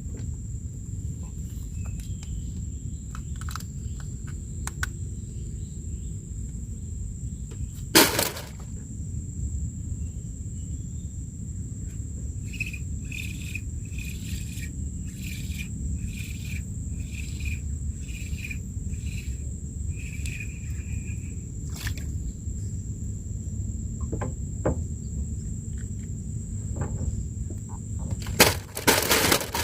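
Outdoor ambience with a steady high insect drone over a low rumble. About a third of the way in a run of short repeated chirps comes in, about two a second. A sharp knock sounds about 8 s in, and a few more knocks come near the end.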